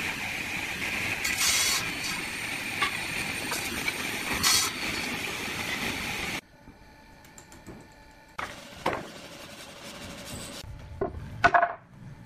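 A power tool working hardwood: a steady whine over rasping noise. It cuts off suddenly about six seconds in, leaving a quieter hum with a few knocks of wood, the loudest near the end.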